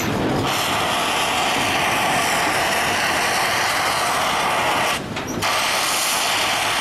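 Steam hissing from a C2-class narrow-gauge steam locomotive blowing a jet of steam out sideways. It is a loud, steady hiss that starts about half a second in and breaks off briefly about five seconds in before resuming.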